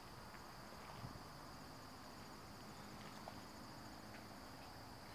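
Faint, steady high trilling of insects such as crickets, over a low outdoor rumble with a few small ticks.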